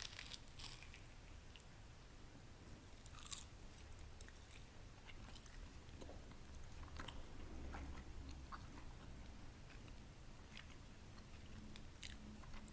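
Close-miked chewing of a crispy baked egg wrap: a bite, then mouth chewing broken by scattered short, sharp crunches.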